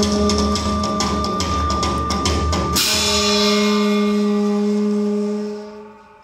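Drums beating a fast rhythm under a held low note, then about three seconds in a single loud crash of large hand cymbals that rings on. The held note returns under the ringing, and everything fades away near the end.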